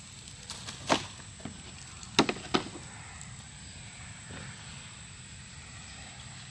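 Firewood being handled at a campfire pit: a few sharp cracks, about one second in and as a close pair near two and a half seconds, over a steady high hum of insects.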